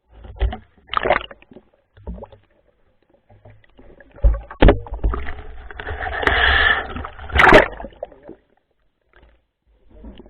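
Water splashing and sloshing in irregular bursts, with a longer splashing stretch midway and two sharp knocks.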